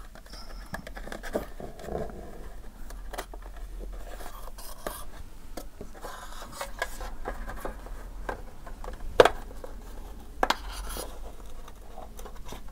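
Handling noises from fitting a webcam and pressing its thin cable into place along a laptop's plastic display lid: light scrapes and rubbing with scattered small clicks, and one sharper click about nine seconds in.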